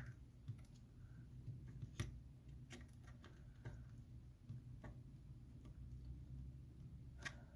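Faint, scattered clicks and ticks, a handful over several seconds, from a plastic pry tool working against an iPhone 7 battery still held down by its adhesive, with a low hum beneath.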